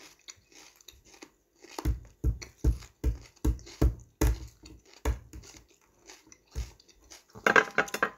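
Close-up chewing of crisp raw bitter melon (ampalaya): a steady run of crunches, about two or three a second, starting about two seconds in and thinning out, then a louder burst of noise near the end.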